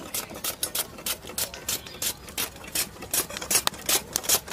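Peeled raw potato being slid again and again across the slicing blade of a stainless steel hand grater, cutting thin chips: quick, even rasping strokes, about five a second.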